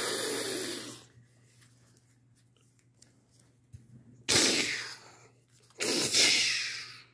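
A child's mouth-made hissing blasts, a pretend sound effect for a solar beam attack: three breathy bursts, the first dying away about a second in, then two more of about a second each in the second half.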